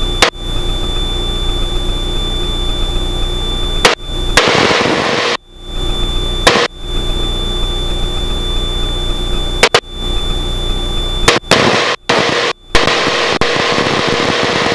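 Extra 300L's Lycoming six-cylinder engine and propeller running steadily at cruise power, heard loud from the cockpit. The sound cuts out abruptly for a split second about seven or eight times, with a sharp click at each break.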